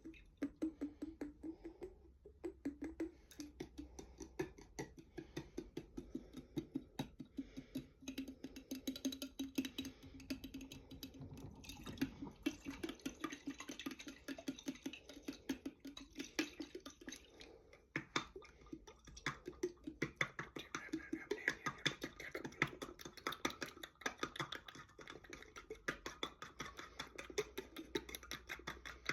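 Rapid light tapping on a jar holding water, several taps a second, with a low ringing tone from the jar that shifts up and down in pitch.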